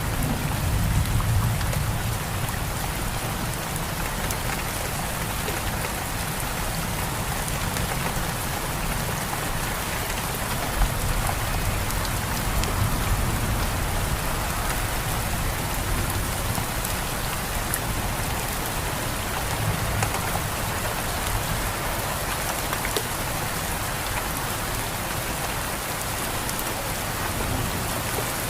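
Steady heavy rain pouring down. A low rumble of thunder dies away over the first couple of seconds.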